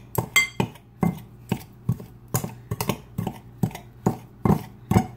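Two table knives cutting frozen butter into flour in a glass mixing bowl: the blades chop through the crumbly mix and clink against the glass about twice a second.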